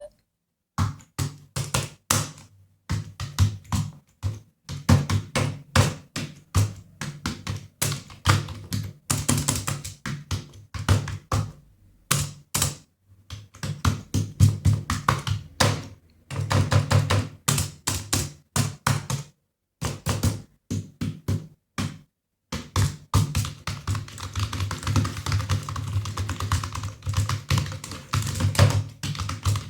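Computer keyboard typing: fast runs of keystrokes in bursts of a few seconds, broken by short pauses.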